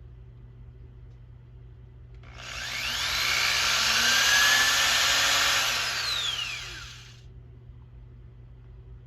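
Handheld power drill boring a small hole. It starts about two seconds in, runs about five seconds with its whine sliding up and down in pitch, then stops.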